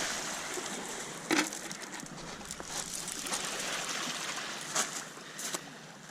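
Small Lake Superior waves washing over a pebble shore, as a steady wash that slowly fades, with a few sharp clicks about a second in and again near the end.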